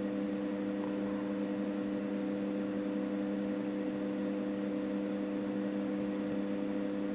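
A steady, unchanging hum made of a few fixed tones.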